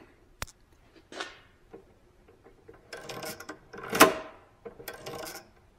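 Metal parts of a benchtop drill press being handled: a few light clicks and knocks, then one sharp, loud metallic clunk about four seconds in, followed by a little rattling.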